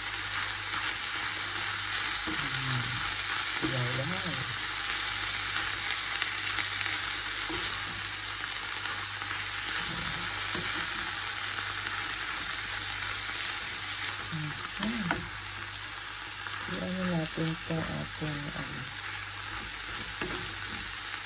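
Chinese cabbage and tuna sizzling in oil in a frying pan, stirred and tossed with a wooden spatula. A steady low hum runs underneath.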